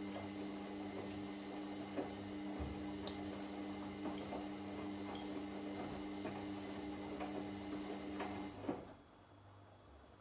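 Washing machine on a wash cycle: the motor hums steadily under scattered clicks and knocks from the turning drum, then the motor stops near the end.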